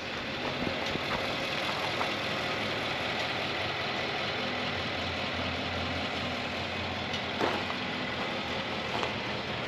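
Nissan Titan XD pickup's engine idling steadily, with a couple of faint clicks near the end.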